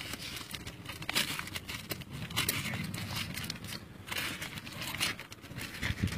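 Thin plastic grafting film crinkling and crackling in irregular bursts as it is stretched, twisted and wound around a guava graft union.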